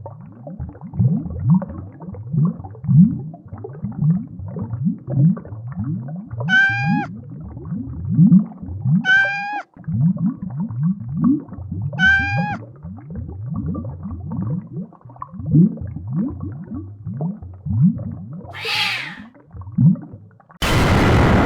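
Added cartoon sound effects of animal-like calls: a rapid string of low, rising grunts, broken three times by a higher drawn-out cry. Near the end a loud rushing noise cuts in suddenly.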